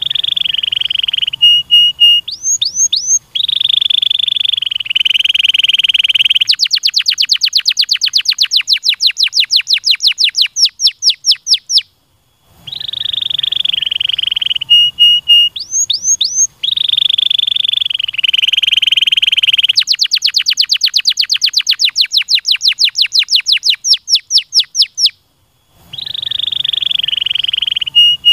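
Domestic canary singing: long rolled trills, then fast runs of repeated sharp notes at about eight a second. The song comes in two bouts with brief pauses near 12 s and 25 s, and a third bout starts near the end.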